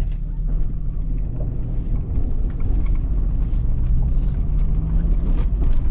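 Jeep Wrangler TJ driving on a paved road, heard from inside the cab: a steady low engine and road rumble.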